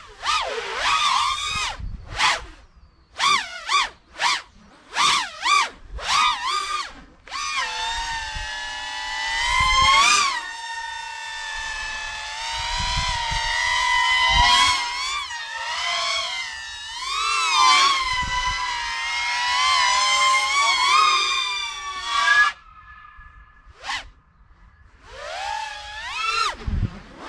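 Small FPV quadcopter's four brushless motors (XNOVA 2204 2300kv on 4S) spinning HQProp 5.1x2.5x3 tri-blade props, whining in pitch as the throttle is punched and chopped. The first few seconds are a string of short throttle bursts; then comes a long stretch of sustained, wavering whine; near the end it drops briefly to a faint steady hum before more bursts.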